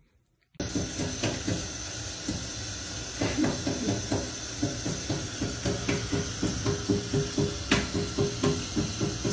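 Kitchen tap running a thin stream into a stainless steel sink, starting about half a second in, as a cat drinks from the stream. Over the steady hiss of the water runs a repeating pattern of low pitched notes with a regular beat, and there are a few sharp clicks.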